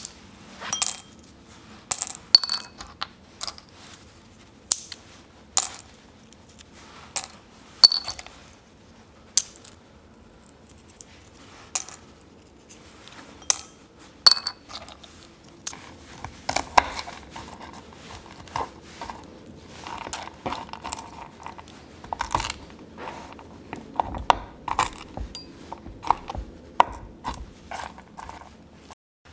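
Pistachio shells cracked open by hand and dropped into a ceramic bowl, with shelled nuts tapped into a glass bowl: sharp clicks and clinks every second or so. In the second half the taps and knocks on the wooden board come faster.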